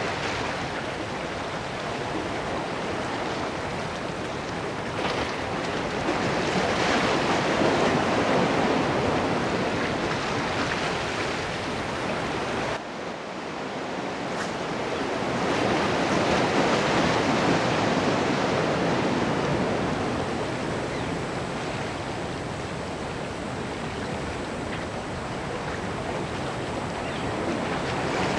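Ocean swell washing against a rock breakwall, a steady surf noise that swells and eases every several seconds.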